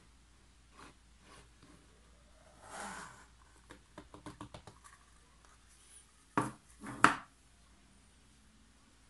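Handling noises as a plastic flip cup is lifted off a wet acrylic-poured canvas and set down: a short rustle about three seconds in, then a quick run of light clicks. Two sharp knocks about half a second apart follow near the end and are the loudest sounds.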